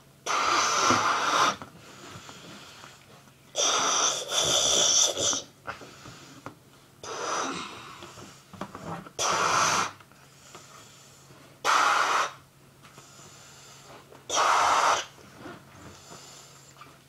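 Someone blowing up a rubber balloon, about six breathy puffs of air into it with short pauses between.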